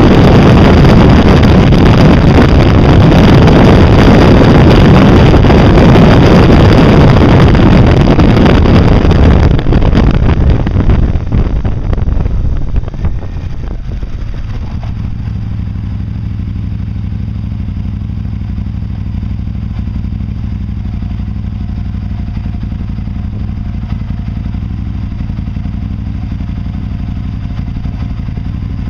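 Wind rushing over the microphone with engine and road noise while riding a Can-Am at speed, dying away as it slows to a stop. The Can-Am's engine then idles steadily while stopped.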